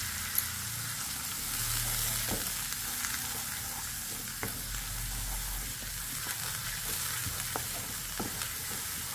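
Onion and ginger-garlic paste sizzling in hot mustard oil in a kadai as it is stirred with a wooden spatula. Under the steady hiss there are a few light knocks and scrapes of the spatula on the pan. This is the masala base being fried, with a splash of water added to keep it from burning.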